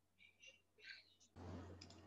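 Near silence with a few faint high clicks, then a steady low electrical hum and hiss that cuts in abruptly about one and a half seconds in.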